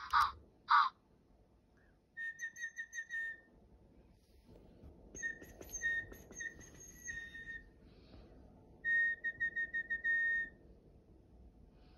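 Whistling in three runs of quick toots, all on one steady pitch: the kind of call that Digi Penguins singing toy penguins answer. A short warbling chirp, like the toys' song, comes right at the start.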